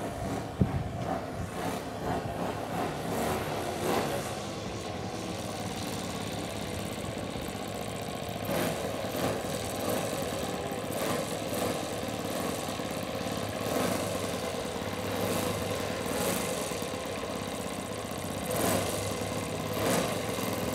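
Enya 120 glow engine of a radio-controlled Carl Goldberg Ultimate biplane idling steadily as the model taxis on the runway, with brief louder swells every couple of seconds.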